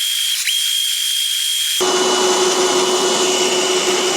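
Small electric motor running steadily with a high whine over a hiss; the whine dips briefly near the start. About two seconds in, a lower hum and fuller noise join.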